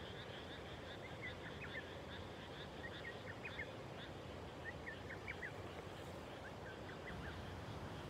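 Frogs calling in a flooded rice paddy: a steady, continuous chorus with clusters of short, quick calls every couple of seconds.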